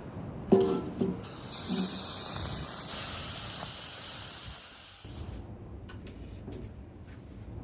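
Two short knocks with a ringing tone, then a loud hiss lasting about four seconds that fades away.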